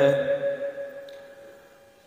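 A man's chanted line of Gurbani breaks off, and a single steady note rings on, fading away over about two seconds.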